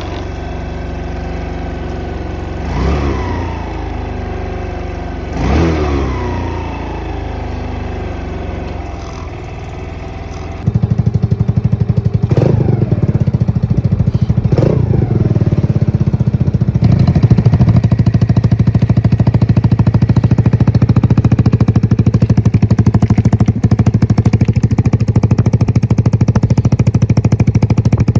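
125cc single-cylinder four-stroke engine of a Vader X7 mini bike (a Honda Grom clone) idling, with the throttle blipped twice and the revs falling straight back each time. About ten seconds in the sound jumps suddenly much louder. Two more quick blips follow, then a steady idle.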